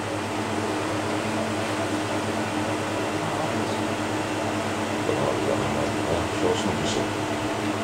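Steady low machine hum made of several steady tones, with a few faint soft sounds about five to seven seconds in.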